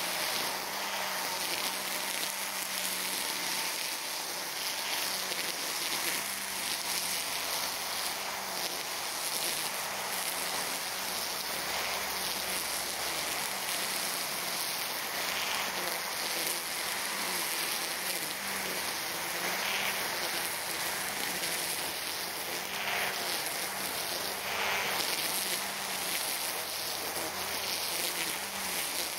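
EGO Power+ battery string trimmer running steadily while cutting grass, its motor hum wavering slightly in pitch under changing load.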